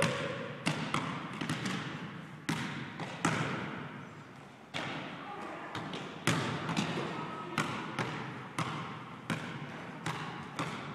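Basketball being dribbled on a hard court: a run of sharp, irregularly spaced bounces, some in quick succession, each with a short echo after it.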